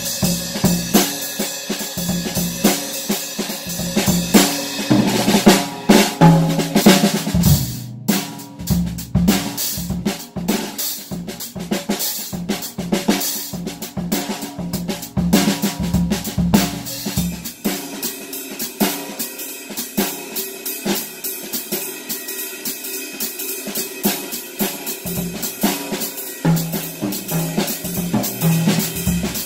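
A drum kit played with sticks: snare, toms, bass drum and cymbals, including a new pair of Sabian hi-hats that have no rivets in them yet. The playing is heaviest, with loud low drum hits, in the first seven seconds or so, then turns lighter and led by the cymbals.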